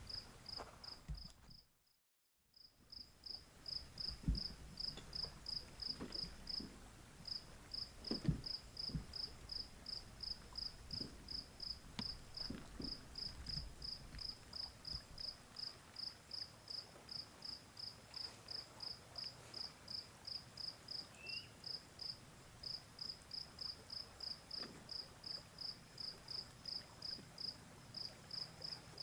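A cricket chirping steadily, about three short high chirps a second, with brief pauses. A few soft low thumps come in the first ten seconds, and the sound cuts out completely for a moment about two seconds in.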